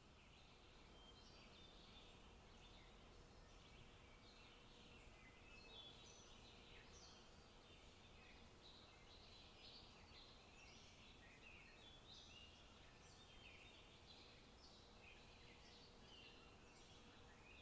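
Faint forest birdsong: many small birds chirping and trilling at once, over a quiet steady background hiss.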